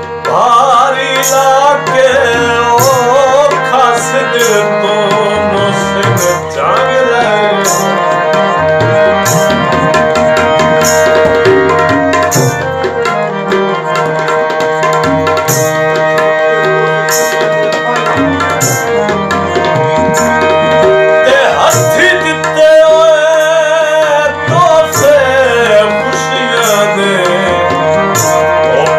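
Instrumental break: a tabla plays a steady rhythm under a harmonium holding sustained notes and playing the melody.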